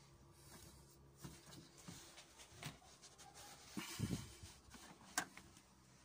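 Faint handling noise and scattered plastic clicks as a Citroën C-Elysée tail-light cluster is unfastened and pulled from its mounting, with a dull knock about four seconds in and a sharp click about a second later.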